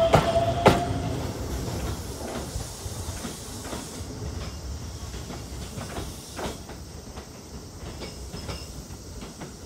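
Keisei 3700-series electric train pulling away: its wheels clicking over rail joints and points, the clicks loudest at the start and growing fainter as the train recedes. A rising electric motor whine ends about a second in.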